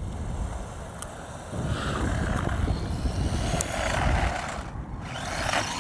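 A small HBX Rampage 1/18-scale four-wheel-drive RC truck driving, its electric motor whining up and down in two bursts of throttle. A few sharp clicks and a steady low rumble lie underneath.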